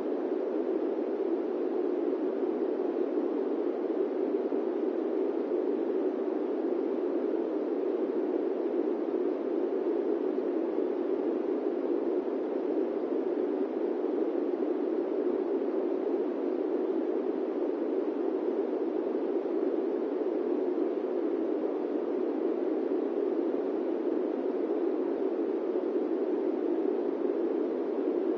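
Steady airplane cabin noise: an even, unchanging rush centred low in pitch, with no distinct engine tone or other events.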